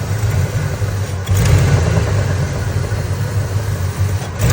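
Ford 5.4-litre Triton V8 idling rough with the hood open, with the hiss of a vacuum leak. The leak is the cause of the rough idle.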